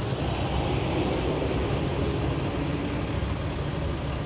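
Steady low rumble and broad hiss of a heavy motor vehicle running, even in loudness throughout, with faint steady engine tones.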